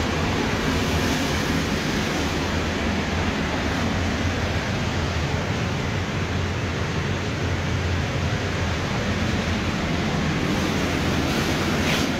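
Steady rushing drone of a heat-drying unit's blower running, with a constant low hum underneath.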